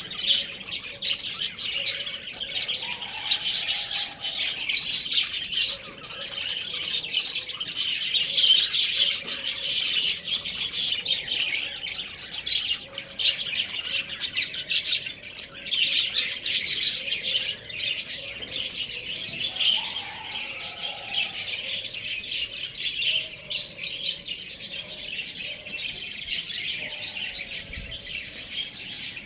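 Many small birds chirping and chattering at once: a dense, continuous mass of high, rapid overlapping chirps.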